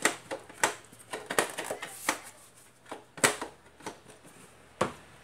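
Plastic speaker enclosure from a plasma TV being handled and unclipped: an irregular series of sharp plastic clicks and knocks as the snap-fit casing is worked apart.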